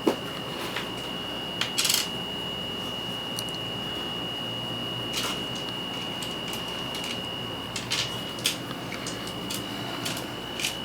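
Small metal parts of a 510 vape connector clicking and clinking as they are handled and fitted back together, with scattered sharp clicks over a steady high-pitched tone.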